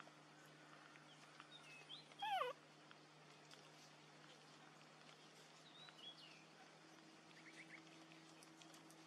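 A baby macaque gives one short, wavering squeal about two seconds in, against near silence with a faint steady hum. A few faint high chirps, like small birds, come and go later.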